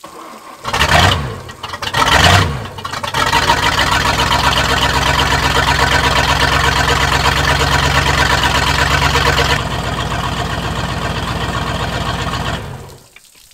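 Sterndrive boat engine starting on the trailer with a garden hose supplying cooling water: two short loud bursts as it fires, then it catches and runs steadily. About nine and a half seconds in it settles to a slightly quieter, lower idle, and near the end it is shut off. It starts and runs after an impeller, exhaust and oil service.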